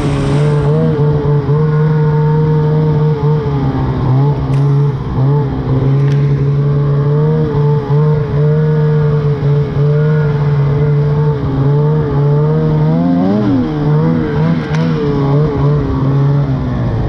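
Snowmobile engine running at a steady cruising speed, with a brief dip and rise in revs about thirteen seconds in.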